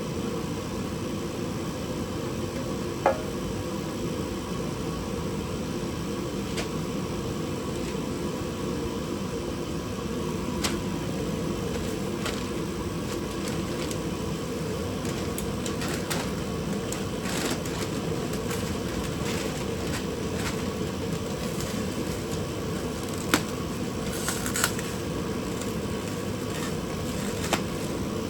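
Steady hum of a fan running, with a few scattered metallic clicks and clanks from parts being handled.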